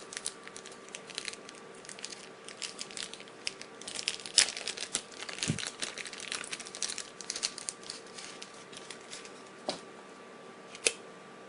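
Plastic packaging crinkling and crackling in irregular bursts as a small remote control is unwrapped by hand, thinning to a few single sharp clicks near the end.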